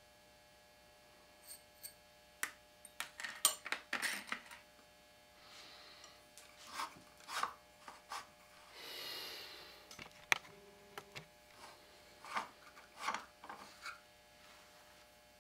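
Steel parts of a Winchester Model 1903 rifle being handled at the bench: scattered clicks, light metallic clinks and short scrapes, with a longer rubbing scrape about nine seconds in and a sharp click just after it.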